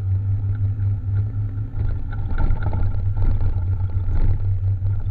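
Honda Vario 150 scooter underway in traffic: a steady low rumble of engine and road noise with no distinct events.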